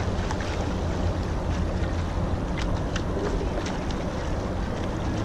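Rowing eight gliding with the blades held off the water: water hissing along the hull under steady wind rumble on the microphone, with a few light ticks.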